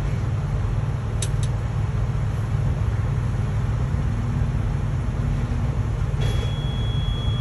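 Diesel engine running steadily, its snapped alternator belt held together with zip ties as a makeshift fix. Two short clicks come about a second in, and a steady high beep starts near the end.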